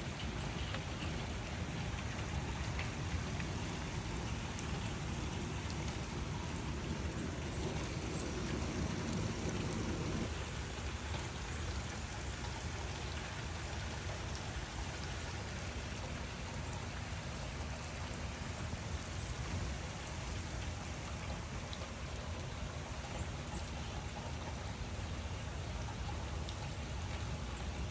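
Steady rain falling, with scattered drops ticking. A low rumble of distant thunder underneath dies away about a third of the way through.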